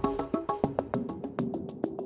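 News-segment ident music: a fast, even run of short ticking percussive notes, about ten a second, with brief pitched tones, fading out.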